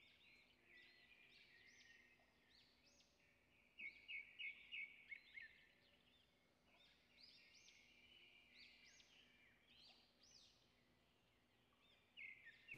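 Faint bird chirping in the background, repeated short notes with a brief louder run of quick notes about four seconds in; otherwise near silence.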